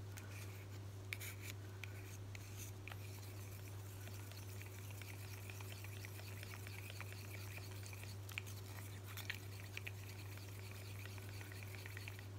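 Wooden craft stick stirring white acrylic paint and water in a small plastic cup: faint scraping and light ticks against the cup, over a steady low hum.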